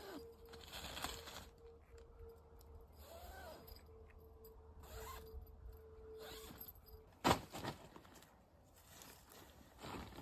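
Faint rustling and scraping of objects being handled, with one sharp knock about seven seconds in.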